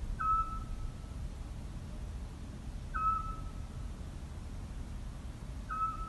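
Eurasian scops owl calling: a single short whistled note, repeated three times at even intervals of about three seconds, over a low steady rumble.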